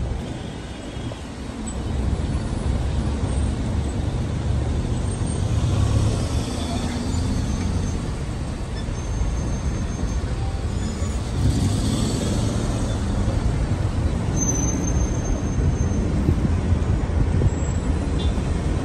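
Road traffic in a slow jam: a steady low rumble of idling and creeping car engines on a wet road. A brief hiss comes about twelve seconds in.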